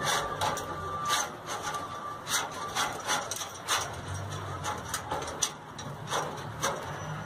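Chain-link fence mesh rattling and clinking against the metal tension bar and corner post as the bar is worked down through the links, in a string of irregular sharp clicks.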